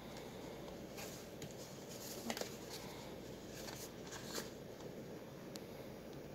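Cardboard-and-plastic ink cartridge boxes being handled and picked up off a wooden table: a few light taps and rustles, the sharpest a little past two seconds in, over a steady low hiss.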